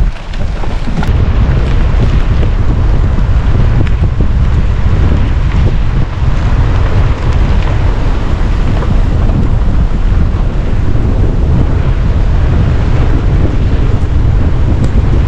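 Heavy wind noise buffeting the microphone: a loud, steady low rumble.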